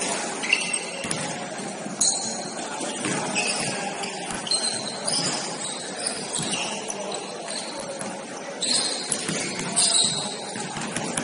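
Basketball game in a gym: the ball bouncing on the hardwood, sneakers squeaking in short high squeals, and players' voices echoing in the hall.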